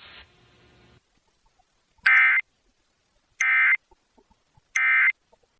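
Emergency Alert System end-of-message (EOM) code: three short warbling digital data bursts of the SAME signal, each about a third of a second, about a second apart. It marks the end of the test alert.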